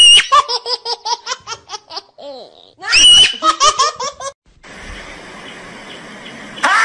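High-pitched giggling laughter, twice: a shrill squeal breaking into a quick run of short 'ha-ha' bursts. Then a steady outdoor hiss, and near the end a marmot starts a loud, long cry.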